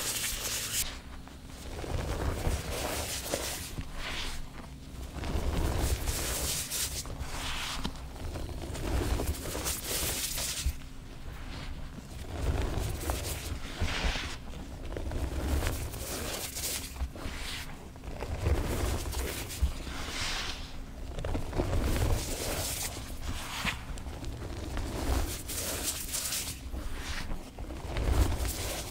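Hands crushing reformed gym chalk mixed with cornstarch: repeated semi-crunchy, dusty squeezes, each a second or two long, with the squeak of packed cornstarch being compressed.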